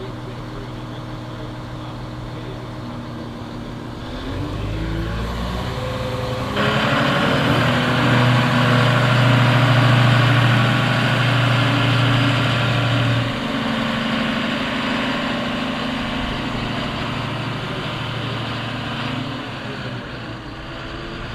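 Heavy diesel engine running, with its revs rising about four seconds in. A louder, fuller roar comes in sharply a couple of seconds later and holds before it eases back about halfway through.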